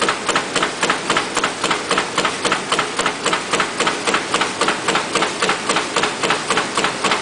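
Automatic paper cup fan die-cutting machine running, its cutter striking in a steady rhythm of about three clacks a second.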